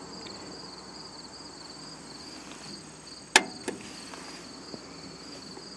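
Steady pulsing chirring of insects, with a sharp click a little past halfway through and a lighter click just after it.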